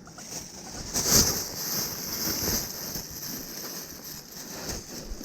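Rustling and scraping of things being handled, with a louder rustle about a second in and smaller ones after.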